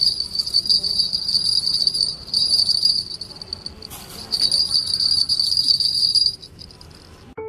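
Two small bell charms, one pink-gold and one white-gold, hanging from a braided gold bracelet and shaken by hand. They jingle with a high, fast-rattling ring in several bursts, with a short lull midway, and stop about six seconds in.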